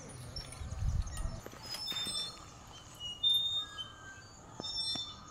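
Small birds chirping in scattered short, high calls, with a brief low rumble in about the first second and a half.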